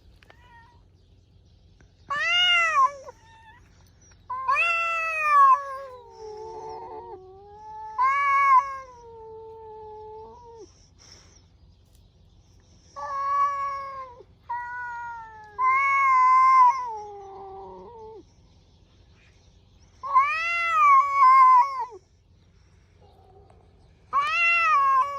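Domestic cats yowling at each other in a territorial standoff. About eight long, wavering calls come a few seconds apart, each rising and then falling in pitch, and some trail off into low moans. It is the drawn-out caterwauling of a vocal face-off rather than a physical fight.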